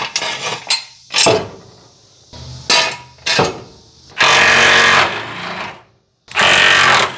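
Impact wrench hammering in bursts: three short blips on the trigger, then two longer runs of just under a second each.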